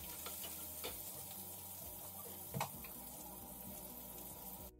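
Chopped onions sizzling faintly and steadily in oil in a non-stick frying pan, with a couple of light knocks of a wooden spatula against the pan, the clearest about two and a half seconds in.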